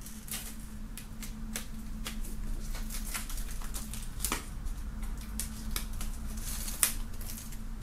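Clear plastic shrink-wrap being slit with a pocket knife and peeled off a CD by hand, crinkling and crackling in irregular sharp clicks, with a few louder snaps about four seconds in and near the end, over a faint steady hum.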